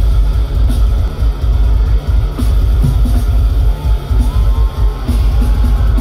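Metalcore band playing live through a festival PA: loud electric guitars, bass and a drum kit, with a heavy, booming low end.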